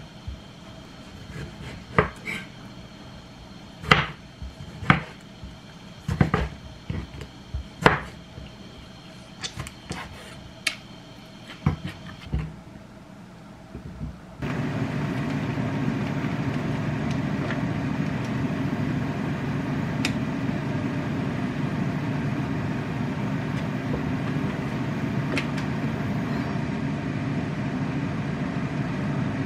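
Chef's knife slicing a tomato on a wooden cutting board: about a dozen sharp knocks of the blade meeting the board, a second or so apart, then a few light clinks. About halfway through, a steady low machine hum starts suddenly and carries on.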